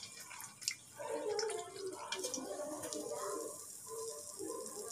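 Kantharappam (wheat-flour and jaggery batter fritter) deep-frying in hot oil, a steady sizzle with scattered crackles.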